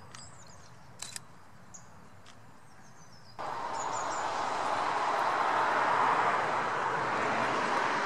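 Small birds chirping, with two quick sharp clicks of a camera shutter about a second in. Partway through, a loud steady rushing noise cuts in suddenly and stays, with the bird calls still above it.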